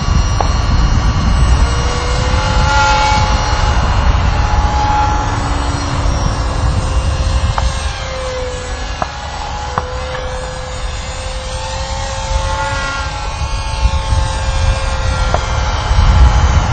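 Blitz RC Works Sky Surfer electric glider's brushless outrunner motor and propeller whining as the model flies past, the pitch bending slightly up and down, over heavy wind rumble on the microphone.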